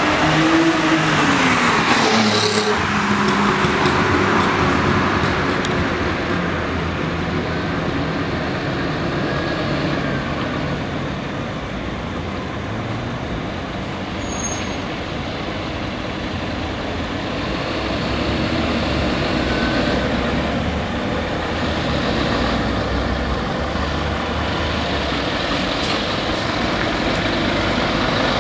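A Scania fire truck's diesel engine running as it pulls out and draws closer, its low rumble growing in the second half, over steady road traffic. A passing vehicle with a falling pitch is loudest in the first couple of seconds.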